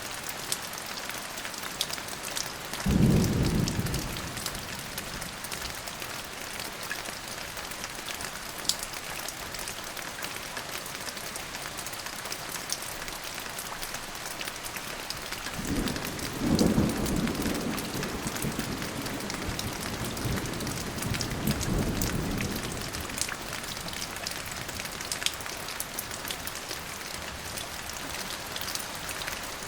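Thunderstorm: steady rain hissing, with scattered drops ticking. Thunder rumbles twice, a short one about three seconds in and a longer rolling rumble with two swells a little past the middle.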